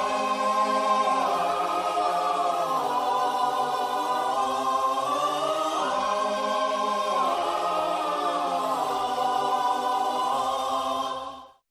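A choir singing long held chords that shift slowly, swelling about halfway through and fading out near the end.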